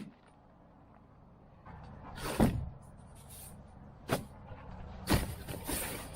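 A few sharp knocks and rustles, the loudest about two and a half seconds in, others near four and five seconds, with a hissing rustle near the end.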